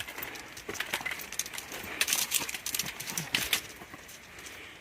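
Footsteps on a rocky dirt trail: irregular crunching scuffs and clicks, with two louder scrapes about two seconds and three and a half seconds in.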